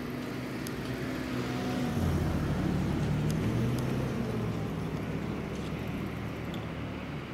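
Steady mechanical hum from a parked electric train's onboard equipment, with low tones that shift and grow louder about two seconds in.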